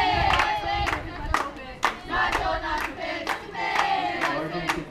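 Softball dugout cheer: girls' voices chanting in unison, with sharp rhythmic hand claps about twice a second.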